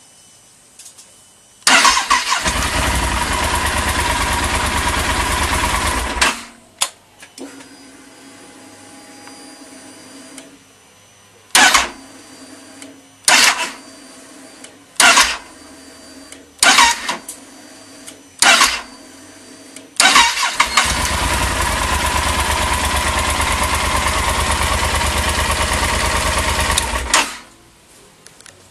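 Electric starter of a Yamaha Super Tenere XT1200Z cranking its 1200 cc parallel-twin engine. It cranks in one long stretch of about four seconds, then gives several short stabs, then cranks again for about seven seconds, and the engine does not catch: the bike's hard-start problem.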